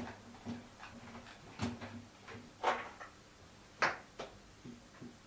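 Whiteboard eraser wiping a whiteboard: several short swishes and light knocks, the two loudest about three and four seconds in.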